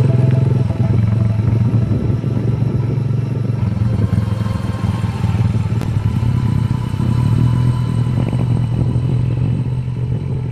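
Small motorcycle engine running steadily while riding along, with wind noise on the microphone.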